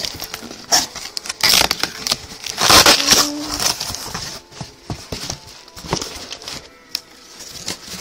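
Packaging being handled during an unboxing: crinkling, rustling plastic and cardboard with irregular clicks and knocks, loudest in two spells around 1.5 and 3 seconds in.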